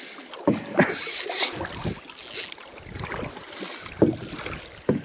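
A few scattered knocks and bumps in a canoe, over a steady hiss of wind and water.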